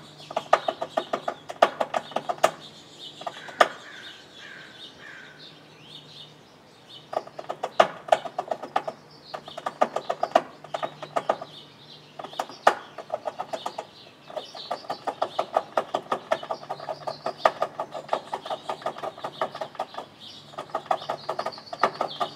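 Fox squirrel gnawing on the lip of a metal rain gutter: a rapid, rhythmic rasping like sawing, with the gutter reverberating. It comes in long runs broken by pauses of one to a few seconds. Birds chirp in the background.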